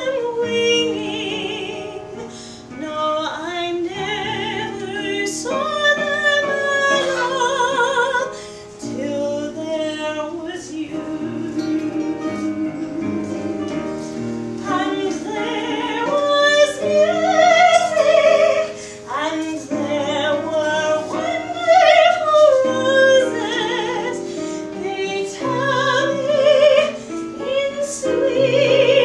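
A woman singing a solo number in a full, sustained voice with strong vibrato, accompanied by a keyboard.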